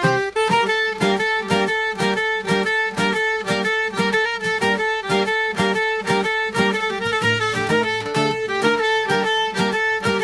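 Background music: a lively tune with a fiddle-like lead over plucked strings and a steady beat.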